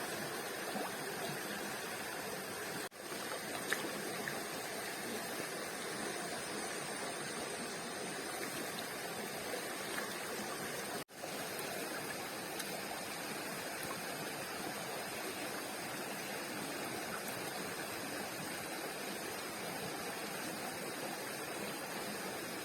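Steady rushing of flowing water, an even noisy wash. It drops out suddenly for an instant about three seconds in and again about eleven seconds in.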